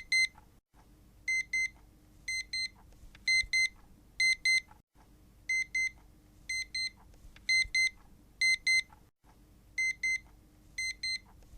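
Electronic alarm beeping: short high-pitched beeps in quick pairs, about one pair a second.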